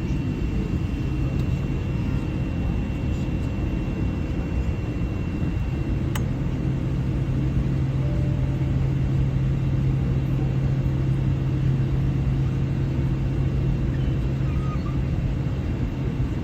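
Jet airliner engine and airflow noise heard inside the passenger cabin during takeoff: a steady rumble with a low drone that grows stronger about six seconds in. At that point a thin high tone stops and a single click sounds.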